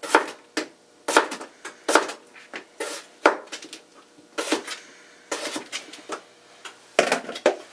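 Chef's knife slicing a potato, each stroke ending in a sharp knock of the blade on the cutting board, in an uneven run of two or three cuts a second with short pauses.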